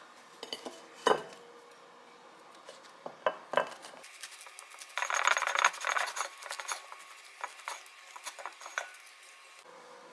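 Kitchen utensils and dishes clinking and knocking, with a stretch of scraping and rubbing about halfway through.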